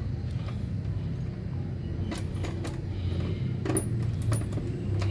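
Several short metallic clinks and rattles, like tools and parts being handled, over a steady low hum.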